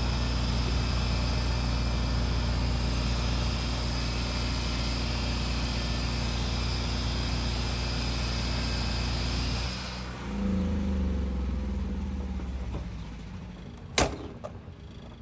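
An engine or motor running steadily with a low hum, which changes and drops about ten seconds in. A single sharp knock comes near the end.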